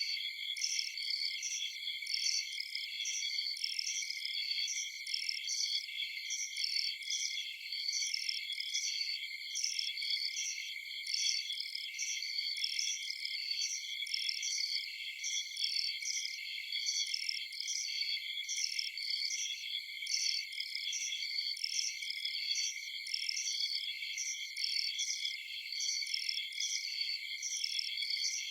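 Crickets chirping in a continuous night chorus: several layered high-pitched trills with a steady, rhythmic pulsing chirp repeating over them.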